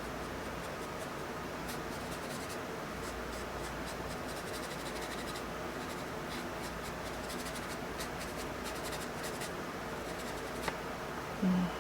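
Drawing strokes scratching on paper: many short, quick scratches as a charcoal drawing stick works textures into the drawing, dying away about two-thirds of the way in. Near the end comes a brief low hum.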